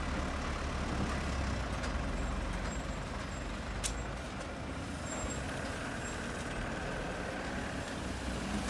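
Diesel engines of a hydraulic excavator and a dump truck running steadily as the truck is loaded with sand. A single sharp click comes about four seconds in.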